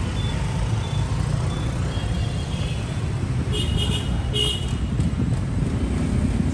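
Street traffic rumbling steadily, with two short vehicle horn toots about halfway through.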